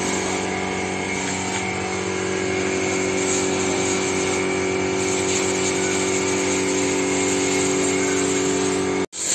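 A motor-driven machine running with a steady, even hum. It cuts off suddenly near the end.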